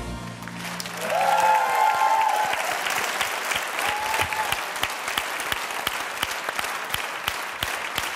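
Studio audience applauding at the end of a sung duet. The last held note of the backing music dies away in the first second or so, and a voice calls out briefly over the clapping about a second in.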